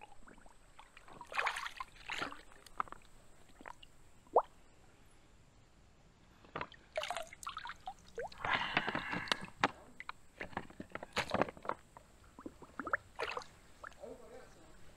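Creek water splashing and sloshing in irregular bursts as a soft plastic squeeze-filter bag is dipped and worked to fill it; the bag is slow to take on water. A single sharp click sounds about four seconds in.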